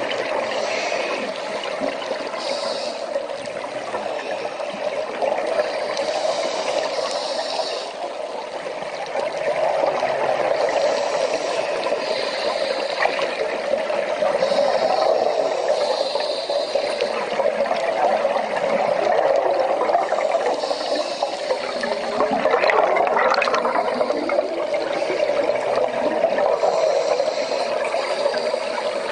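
Underwater ambience picked up by a diver's camera: a steady rush of water with bubbling, and a soft hiss that comes and goes every few seconds.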